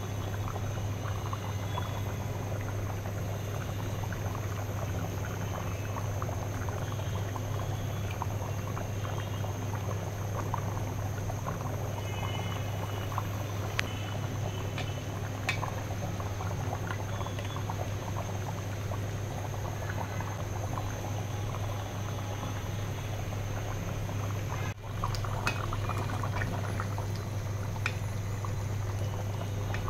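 Thick curry broth of beef trotters bubbling at a rolling boil in an aluminium pot, a dense steady crackle of bursting bubbles over a constant low hum.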